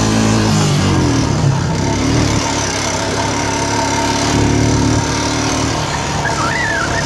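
Four-wheeler (ATV) engine running while riding a woodland trail. Its note drops about a second in, then holds fairly steady.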